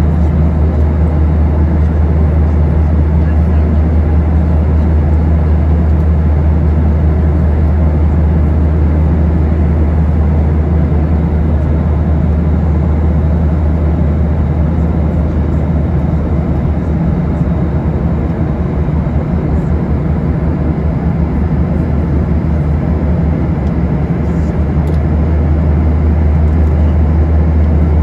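Steady drone of a Boeing 737-800's cabin in cruise: a deep hum from the CFM56 engines under a constant rush of air along the fuselage.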